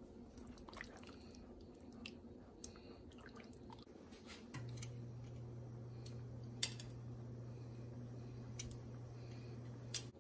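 Curry gravy simmering in a pan, with faint scattered bubble pops and a few sharper clicks. A steady low hum comes in about halfway through.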